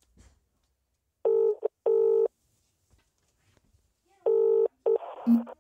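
British double-ring ringback tone played through a phone's loudspeaker while an outgoing call rings: two double rings about three seconds apart. The second double ring is cut short near the end as the call is answered and the line opens.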